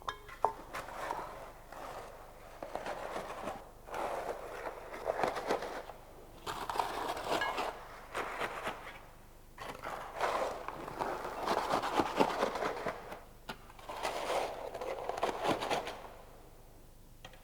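Fresh concrete being mixed, a tool scraping and grinding through the gravelly mix in repeated strokes a second or two long, with short pauses between them.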